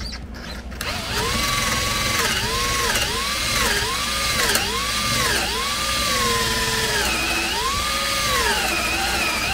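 Cordless drill with a 3/8-inch bit boring a hole into the top of a wooden axe handle, starting about a second in. The motor's whine speeds up and slows down over and over as it cuts.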